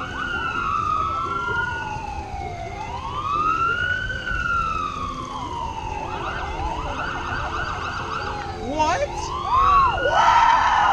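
Emergency vehicle sirens wailing, more than one at once, their pitch rising and falling slowly and crossing each other. About six seconds in they switch to a fast warbling yelp, and they grow louder near the end.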